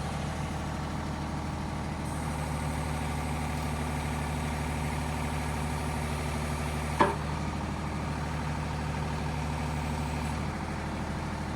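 Takeuchi TB228 mini excavator's diesel engine running steadily, with a single sharp click about seven seconds in.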